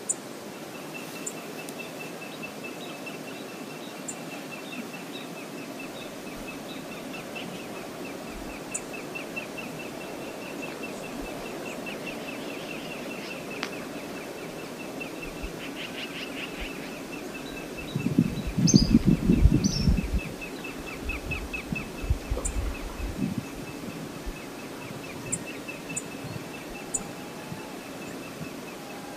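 Steady outdoor ambience of a flowing river, with a continuous high, rapid trill and scattered short bird chirps. About two-thirds in, a few seconds of low rumbling bursts are the loudest sound.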